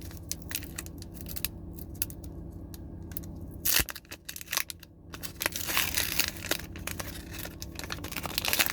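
Foil wrapper of a Pokémon booster pack being handled and torn open. Scattered small rustles and clicks give way to a sharp crinkle about four seconds in, then a longer run of crinkling near the end.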